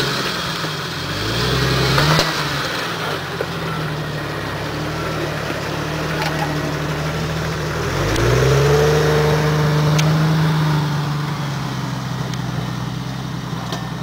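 Jeep Wrangler engine running under load as it crawls over rocks, revving up about a second in and again about eight seconds in, then easing off.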